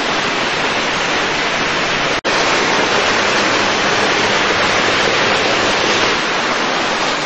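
Steady loud rushing hiss with no tone or rhythm in it, cutting out for an instant about two seconds in.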